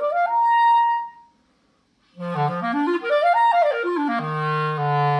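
Clarinet played with a Legere French cut synthetic reed (size 3 1/4): a fast run up to a short held high note that stops about a second in. After a brief pause comes another run up and back down, ending on a held low note.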